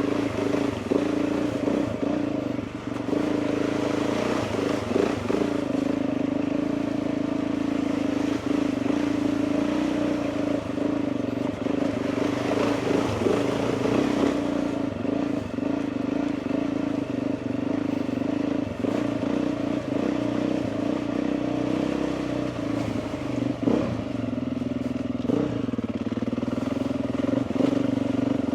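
Motorcycle engine running steadily at low, even speed, with scattered brief knocks and rattles as the bike rides slowly down a rough, wet lane.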